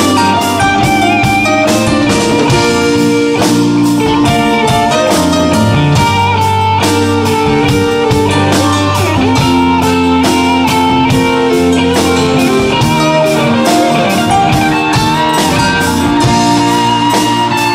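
Live band playing a slow rock ballad: a Strat-style electric guitar plays a sustained lead line with bent notes over a steady drum kit and bass.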